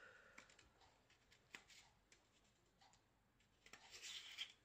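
Near silence with faint handling sounds: a light click about a second and a half in, then a short patch of rustling and small clicks near the end, as small plastic acrylic powder pots are handled.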